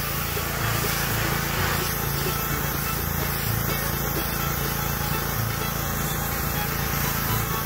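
Pressure washer spraying a steady high-pressure jet of water onto a greasy truck frame, the spray hissing against the metal over a constant low drone from the washer's motor and pump.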